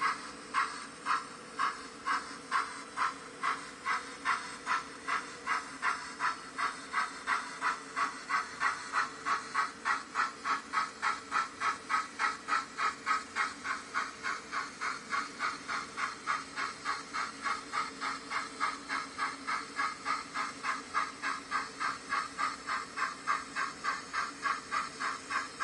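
Steam-locomotive chuffing from the sound decoder of a DCC sound-fitted Dapol Hawthorn Leslie model as it runs: a regular beat of exhaust chuffs, about two a second at first, quickening to about three or four a second partway through and then holding steady.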